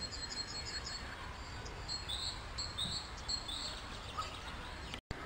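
A small songbird singing: a quick run of high trilled notes, then three short, downward-sliding chirps, over a steady low background rumble.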